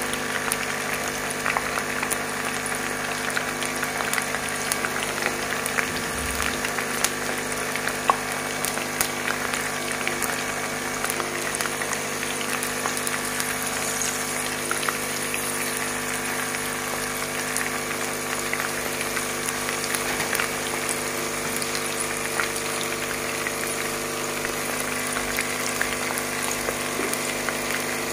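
Cornflour-coated chicken strips deep-frying in a kadai of hot oil: a steady bubbling sizzle full of fine crackles, over a steady low hum.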